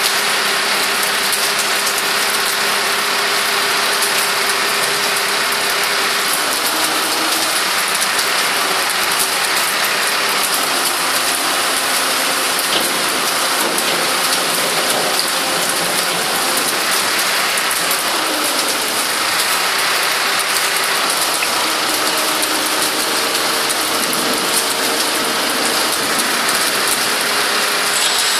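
Rapid ratcheting clicks from a hand-worked mechanism as the lorry's tail loading ramp is raised upright.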